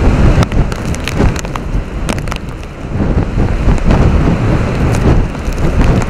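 Typhoon wind gusting hard into the microphone with a loud, rumbling buffet over the hiss of heavy rain. A few sharp taps come through in the first half.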